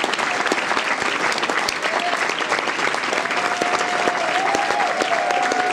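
Audience applauding steadily, a dense patter of many hands clapping. About halfway through, one voice holds a long cheering call over the clapping.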